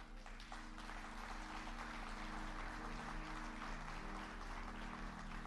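Faint applause from a church congregation over soft background music of held low notes, whose chord shifts a couple of times.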